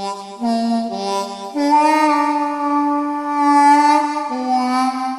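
Music: a wind instrument playing a slow line of a few long, held notes, moving to a new pitch every second or so.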